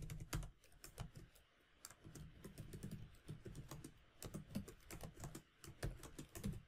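Computer keyboard typing: a run of quick, faint keystrokes, with a short pause about a second and a half in.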